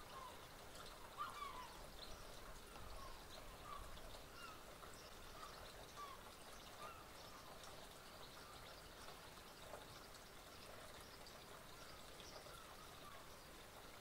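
Faint twittering and short chirps of small garden birds, busiest in the first half.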